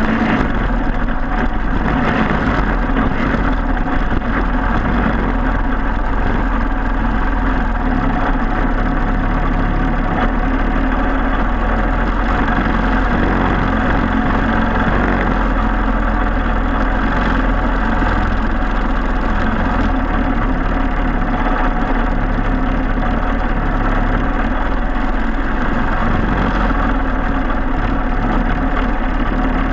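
Briggs & Stratton Animal four-stroke single-cylinder kart engine running loud and steady, its pitch holding nearly level, with a buzzy, rattly edge.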